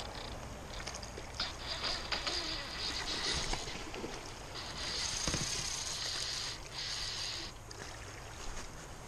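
Steady rush of a fast-flowing river over stones, with scattered clicks and rubbing noises close to the microphone.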